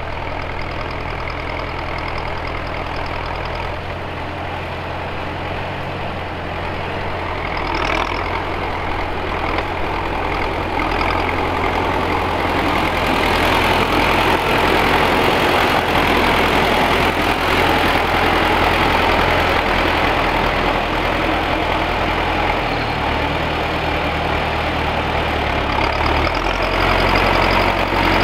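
T-40 tractor's air-cooled diesel engine running steadily; it grows louder about a third of the way in, and its note shifts twice near the end.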